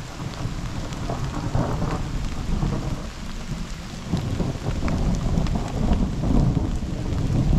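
Thunderstorm: steady rain with scattered sharp drop hits, over a low rumble of thunder that swells from about four seconds in.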